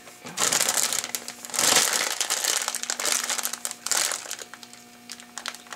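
Plastic zip-top freezer bag crinkling in several irregular bursts as it is pressed shut and kneaded to mix the marinade through the chicken inside; the crinkling eases off near the end.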